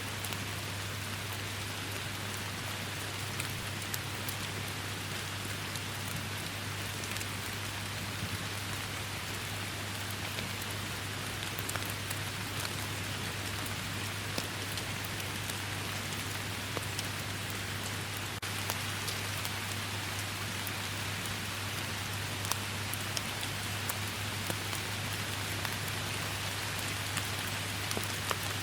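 Steady rain falling, an even hiss with scattered individual drops ticking through it, over a constant low hum.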